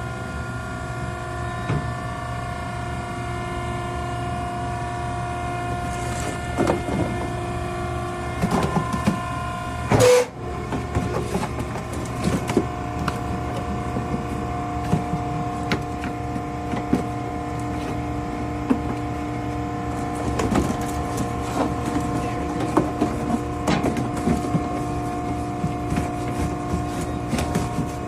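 Maren cardboard baler running, its hydraulic power unit giving a steady whine, with scattered clicks and knocks and one loud knock about ten seconds in.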